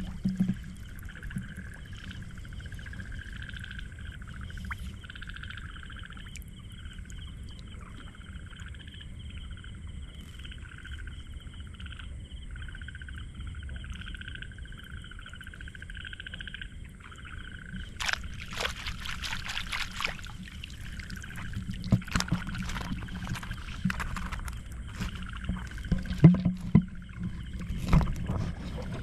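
Frogs calling in a steady, pulsing night chorus. About eighteen seconds in comes a run of sharp clicks and rustling, then scattered knocks.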